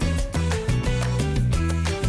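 Music with a steady beat and a strong, moving bass line.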